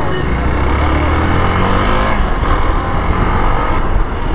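Motorcycle engine running while ridden in traffic, its note rising as it accelerates around the middle.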